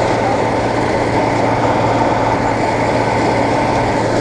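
Bizon Z040 combine harvester running steadily while cutting grain, heard from the operator's platform: a loud, even mix of diesel engine and threshing machinery with a constant low hum.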